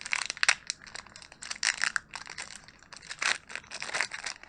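Foil Pokémon booster pack wrapper crinkling and tearing as it is handled and opened, in irregular rustling bursts.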